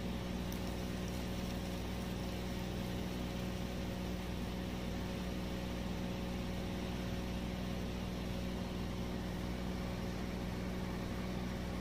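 A steady low electrical hum with a constant hiss, unchanging throughout.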